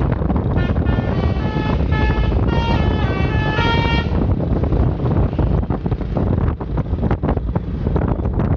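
A telolet tune: a quick run of short pitched notes that stops about four seconds in. After it, wind rushes over the microphone over road noise, with a few sharp knocks.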